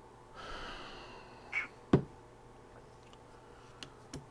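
Handling of a vape tank and a plastic e-liquid dropper bottle during refilling: a soft hiss, then a sharp click about two seconds in and two small clicks near the end.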